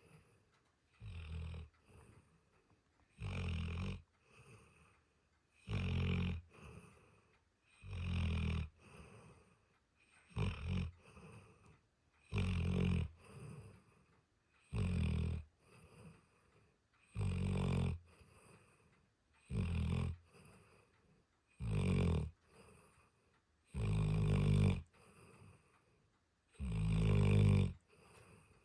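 Dog snoring in a steady rhythm: a loud snore about every two seconds, around a dozen in all, with softer breaths in between.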